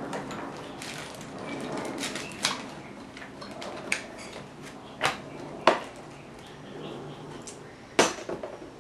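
Clear plastic packaging bags crinkling and rustling as small parts are unwrapped, with several sharp taps of hard plastic parts, the loudest two near the middle and near the end.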